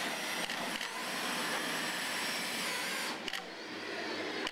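A power tool running with a steady hiss, with a few light knocks; the higher part of the sound drops away about three seconds in.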